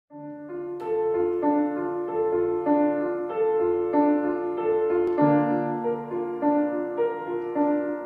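Piano playing silent-film-style accompaniment: a steady, repeating pattern of chords, with a lower bass note entering about five seconds in.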